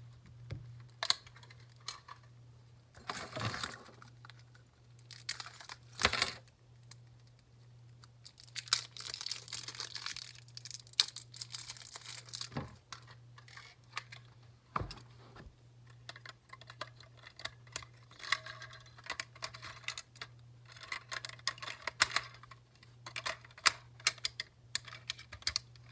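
Hands handling a small plastic RC transmitter and its packaging: scattered sharp plastic clicks, taps and brief rustling, over a faint steady low hum.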